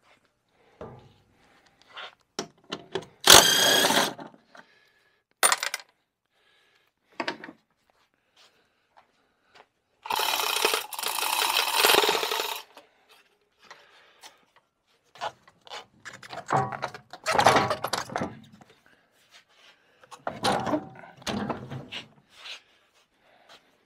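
Cordless drill/driver running in short bursts, once about three seconds in and for a longer double run around ten to twelve seconds, unfastening a snowmobile's skid (rear suspension). Later come irregular metal clunks and rattles as the skid is worked loose and lowered out of the chassis.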